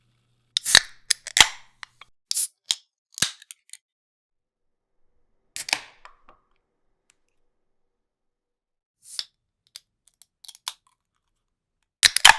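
Aluminium drink can being opened by its pull-tab: sharp clicks and short hissing bursts of escaping gas, in several separate bursts with pauses between.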